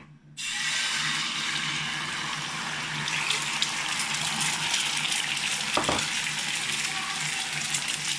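Four raw eggs hitting hot oil in a frying pan: a sudden sizzle starts about half a second in and carries on as a steady frying hiss. A single knock about six seconds in.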